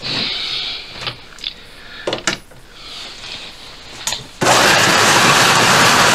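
Small electric motors of Carrera Go 1/43 scale slot cars whining as they run on the plastic track, with a few sharp clicks and clacks. About four and a half seconds in, the sound jumps suddenly to a much louder, steady rushing clatter, heard from track level as the cars pass close by.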